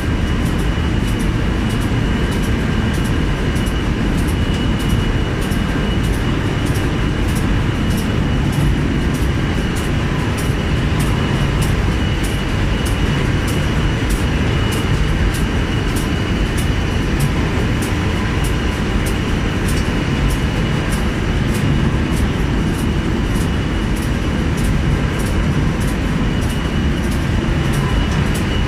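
Gravure printing press running: a steady, loud mechanical rumble with a thin high whine and a faint regular tick about twice a second.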